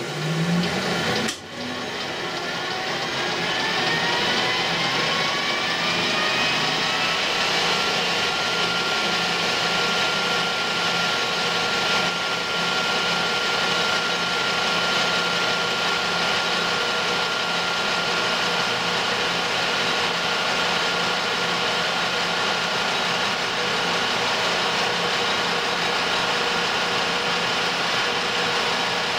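Colchester lathe starting up with a sharp clunk about a second in, its gear whine rising in pitch for several seconds as the spindle comes up to speed, then running steadily while the tool takes a turning pass along the bar.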